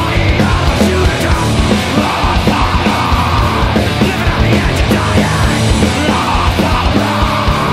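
Hardcore punk song playing loud and steady, a dense full-band wall of sound with a fast regular drum beat.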